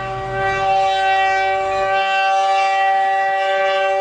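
Locomotive air horn sounding one long, steady chord, blown for a grade crossing. A low rumble under it fades out about halfway through.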